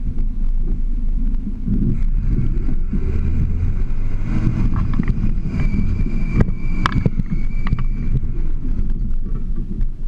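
Toyota Land Cruiser FJ40's engine running at low revs as the truck crawls over rock, with a few sharp knocks about six to seven seconds in.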